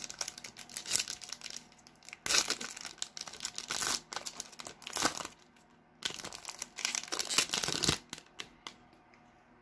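A 2019 Donruss football trading-card foil pack being torn open and its wrapper crinkled by hand, in repeated crackly bursts. The crinkling stops about eight seconds in, leaving a few faint clicks.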